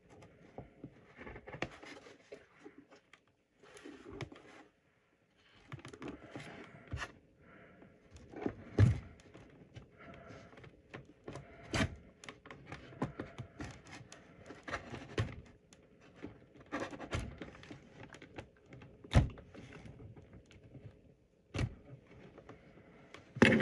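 Handling noise from small-parts work at a desk: irregular clicks, light knocks and scraping as a plastic power connector is trimmed and fitted, with a few sharper knocks.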